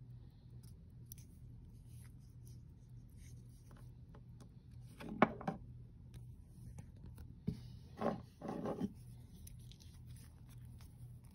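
A vintage Hamilton tank watch set down on a wooden tabletop with one sharp knock about five seconds in, followed by a lighter knock and two short scuffs as the case and leather strap are moved on the table.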